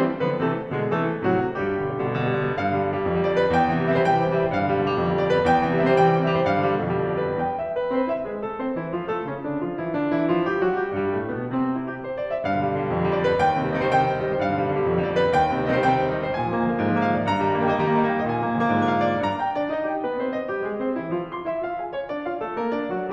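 Background piano music, a flowing melody over sustained chords.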